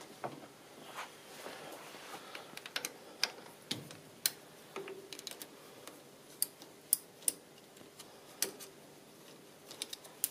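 Scattered small metallic clicks and taps from a T-handle hex key working the screws out of the side plates of a lathe's quick change tool post.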